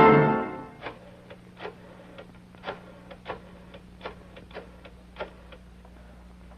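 Music dies away in the first half-second. Then comes a string of sharp, irregularly spaced clicks and taps, about three or four a second, over a faint steady hum.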